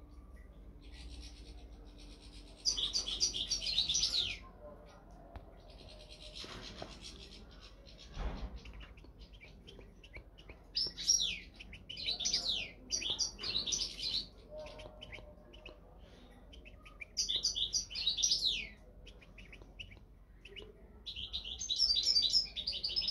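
European goldfinch singing in four bouts of quick twittering phrases, with gaps of a few seconds between them. A soft low thump about eight seconds in.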